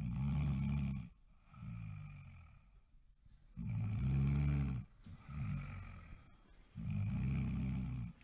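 Cat snoring loudly in deep sleep, in a steady rhythm: a loud, low, rattling snore of about a second, then a softer one, three times over, about every three and a half seconds.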